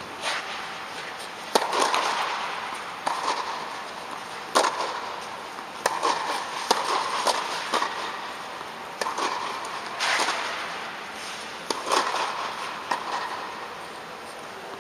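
Tennis balls struck by rackets and bouncing on the court: sharp pops at uneven intervals, about one or two a second, each ringing on in the echo of the air-supported dome hall.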